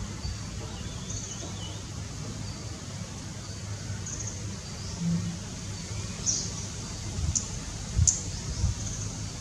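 A squirrel gnawing tree bark: short, scratchy scraping bursts that come closer together towards the end, the loudest about eight seconds in together with a soft thump, over a steady low background rumble. A bird gives a brief wavering call near the start.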